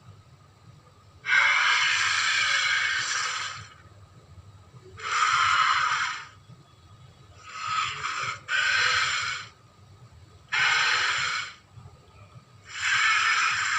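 Carnotaurus dinosaur sound effects: a series of harsh, breathy, hissing calls, each lasting one to two seconds, with the third broken into two quick parts and another call starting near the end.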